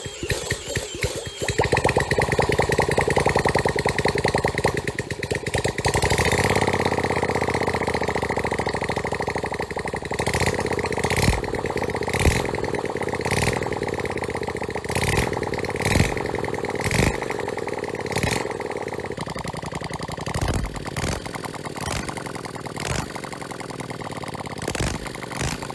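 A home-made 60-degree V-twin minibike engine with open exhaust ports and no pipes. It catches about a second and a half in, runs fast and loud, then settles to a lumpy idle broken by sharp pops about once a second. This is the unmuffled bark that its builder likens to a bubble gun.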